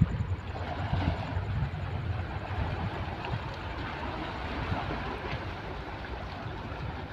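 Wind buffeting the microphone in a steady low rumble over the wash of shallow sea water at the shore, with a few faint ticks.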